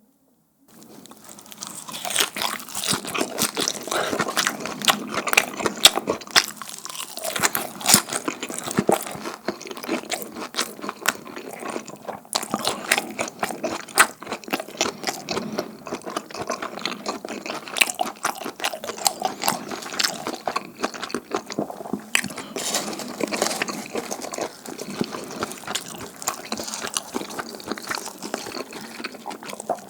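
Close-miked chewing and crunching of sticky, chewy fried dumpling hotteok, a dense run of wet crackles and sharp clicks that starts about a second in.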